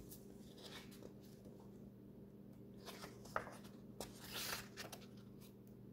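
Faint rustling and brushing of picture-book pages being handled and turned, with a few soft swishes in the second half, over a steady low hum.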